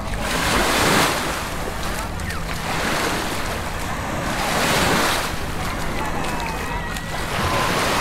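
Small Mediterranean waves washing up onto a sandy beach, each wash swelling and fading, four in all about two seconds apart, with people chattering in the background and wind rumbling on the microphone.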